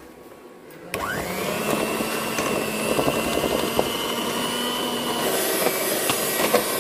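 Electric hand mixer switched on about a second in: its motor whine rises quickly and then runs steady as the beaters whip cream in a steel bowl. About five seconds in the whine drops away and the mixer runs on with a different, rougher sound.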